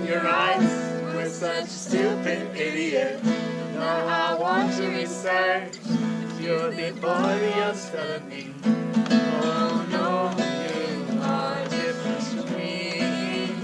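Acoustic guitar strumming chords with a voice singing a song over it.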